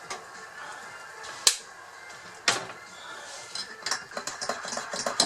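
Mug and spoon clinking while a cup of coffee is made: two sharp knocks about a second apart, then a run of quicker, lighter clinks near the end.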